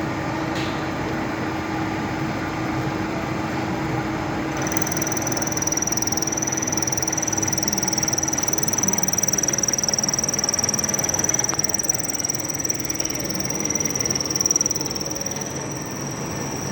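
Machine-shop machinery running: a steady mechanical noise with a low hum, joined about five seconds in by a high, steady whine.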